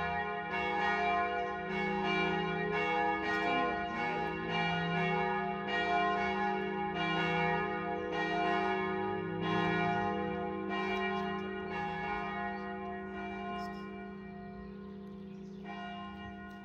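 Church bells ringing before a service, several bells sounding together with a stroke about every two-thirds of a second. The strokes fade out near the end, leaving the bells' hum dying away.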